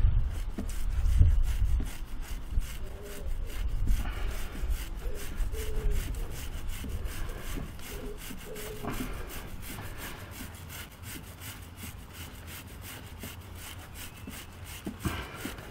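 A toothbrush scrubbing an oil-soaked motorcycle drive chain in rapid, evenly repeated strokes, working lubricant into the rollers and links. It is louder in the first couple of seconds.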